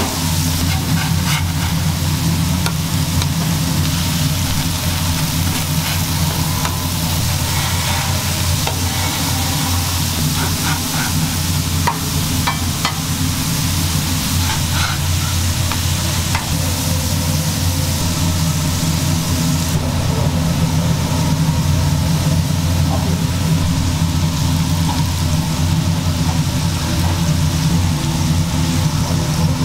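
Ground-beef burger patties sizzling on a flat-top griddle over a steady low hum. A metal spatula scrapes and clicks against the griddle now and then, mostly in the first half.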